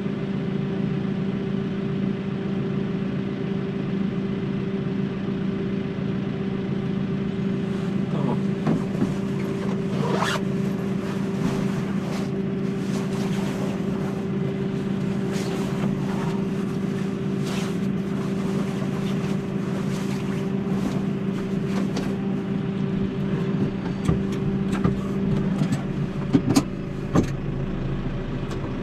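Tractor engine running at a steady, unchanging speed, heard from inside the cab, with scattered light clicks and a few sharper knocks near the end.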